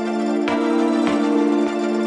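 Background music: soft sustained synthesizer-like chords with a gentle pulse of note changes.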